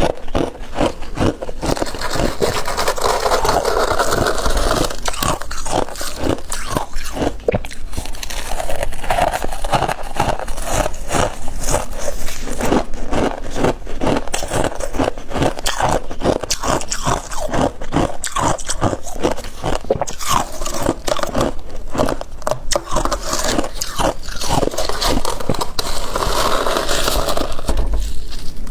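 Crunching and chewing of freezer frost in the mouth: rapid crunches one after another throughout.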